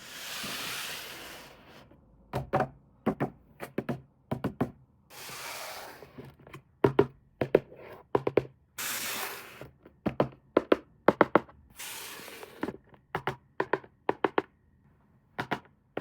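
Packaging and plastic parts being handled: clusters of sharp clicks and knocks, broken up four times by short hissing scrapes.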